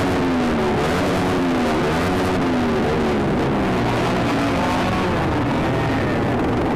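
A pack of two-stroke motorcycles revving, several engines at once, their pitch rising and falling over one another.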